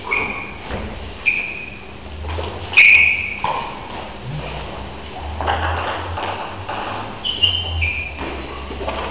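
Table tennis ball pinging off the table and bats: several short, separate high pings, the loudest about three seconds in, with two quicker ones near the end as a rally starts.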